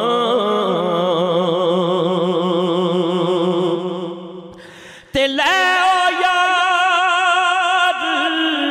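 A male singer holds long, ornamented notes with a wide vibrato in a Punjabi devotional kalam, over a steady low drone. The voice fades away about four seconds in, and a new long held sung note starts abruptly about a second later.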